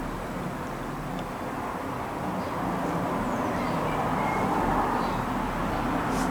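Steady background rumble and hiss that swells slightly, with no bell strikes: the bells are not yet sounding.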